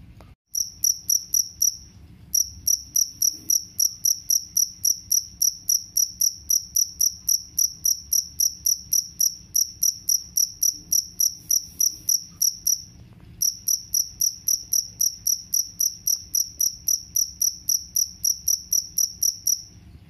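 Male two-spotted field cricket (jangkrik kalung) chirping by rubbing its raised wings together: a steady run of shrill chirps, about four a second, broken by two short pauses.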